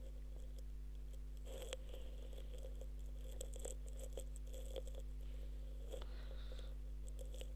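Pen writing on notebook paper: faint scratching with small irregular ticks as a word is written, over a steady low hum.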